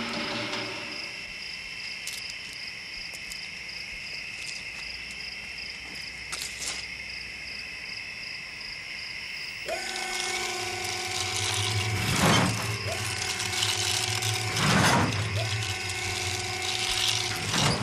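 Film sound effects of a robotic exoskeleton walking: servo motors whirring with each stride and a heavy metal footfall about every two and a half seconds, three steps in all. Before the walking starts, about ten seconds in, a steady high-pitched drone runs with a few faint clicks.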